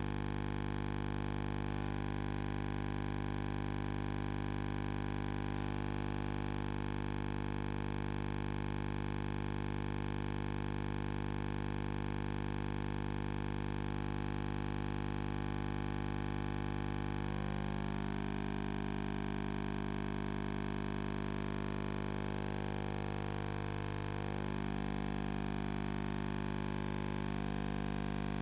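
Steady electrical hum with a stack of overtones, coming through a public-address system, with slight wavering in its upper tones in the second half.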